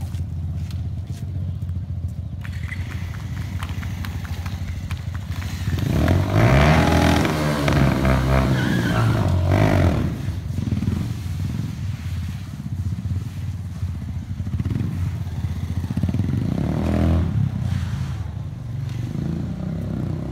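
Motorcycle engine running at a steady low idle, then revved hard with rising and falling pitch for about four seconds, from about six seconds in, as the front wheel is lifted into a wheelie, with another rev burst near the end.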